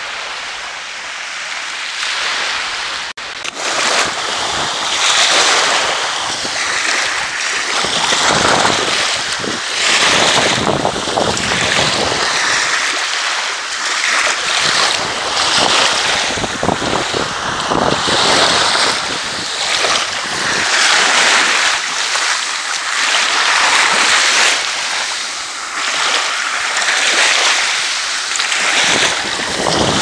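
Small Sea of Azov waves washing up over a beach of crushed shells, the hiss swelling and fading every two to three seconds, with wind buffeting the microphone.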